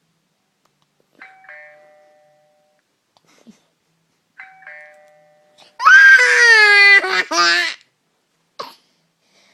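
A phone's doorbell ringtone plays a descending two-note ding-dong chime twice. Then a child lets out a loud, drawn-out vocal sound that falls in pitch, in two parts, followed by a short click.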